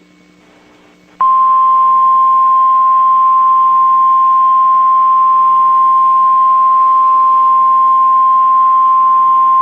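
NOAA Weather Radio warning alarm tone, the single 1050 Hz tone that signals a weather alert is about to be read. It starts abruptly about a second in and holds loud and unbroken at one steady pitch. Before it there is only faint hum and hiss.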